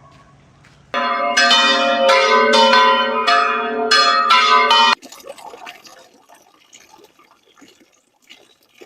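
Church bells ringing, struck again and again for about four seconds with the tones hanging over one another, then cut off abruptly. A faint, irregular background sound follows.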